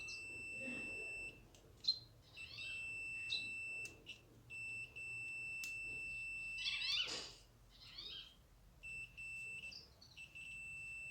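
Multimeter continuity buzzer beeping in a steady high tone held across a vacuum cleaner's push-button power switch. It breaks off and resumes several times; it keeps sounding, showing the switch stays closed and never cuts the circuit. Short high chirping calls sound over it now and then.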